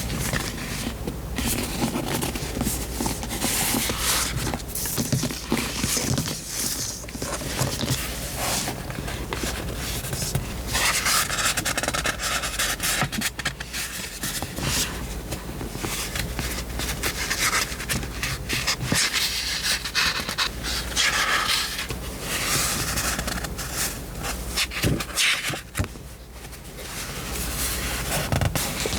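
Close rustling and scraping of paper as a vintage paper diary is handled and its pages are turned, in uneven stretches, over a low steady hum.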